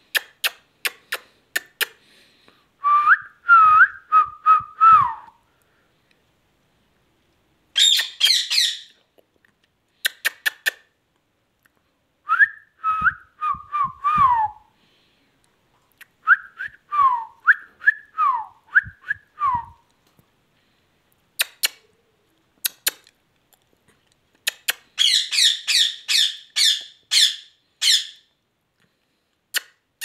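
Rose-ringed (Indian ringneck) parakeet calling in short bouts: runs of rapid clicks, short whistled phrases that slide down in pitch, and two bursts of harsh, buzzy chatter, with pauses between.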